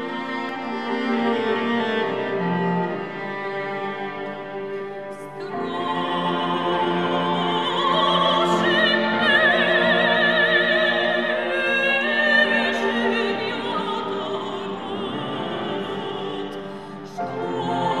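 Cello and piano playing an instrumental introduction; about five seconds in a soprano voice enters, singing with wide vibrato over the cello and piano.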